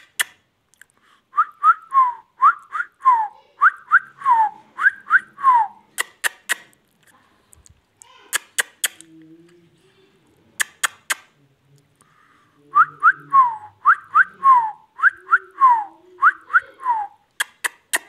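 Indian ringneck parakeet whistling a short repeated phrase: quick rising notes followed by a falling note, over and over in two runs several seconds apart. Sharp clicks come between the runs.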